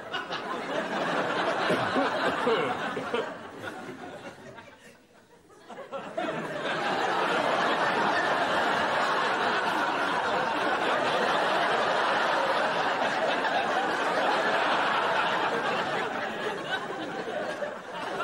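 Studio audience laughing. The laughter dies away about five seconds in, then starts again a second later and holds, long and steady.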